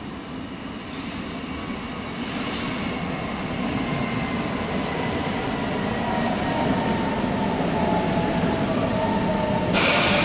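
Electric passenger trains moving through the station, growing steadily louder, with thin high squealing tones and a short high squeal about eight seconds in. A brief hiss comes near the end.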